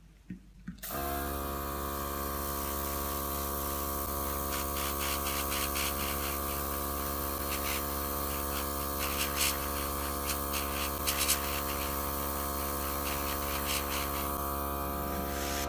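Small airbrush compressor starting up about a second in and running with a steady hum, with the hiss of air and paint spraying from the airbrush onto a nail.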